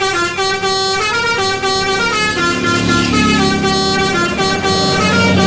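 Telolet-style multi-tone bus air horn playing a quick melody of short stepped notes, with a low rumble underneath in the second half.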